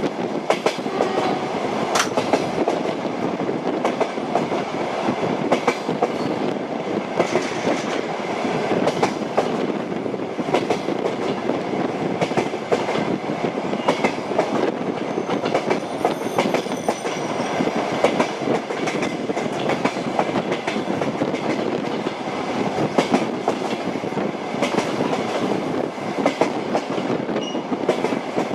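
Train wheels clattering over the rail joints with a steady running rumble as the train travels at speed between stations: a continuous clickety-clack with many sharp knocks.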